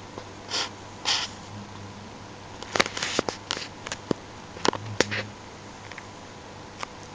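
Snoring breaths: two short breathy rasps about half a second apart near the start, then a run of sharp clicking, sputtering breath noises through the middle over a faint low rumble.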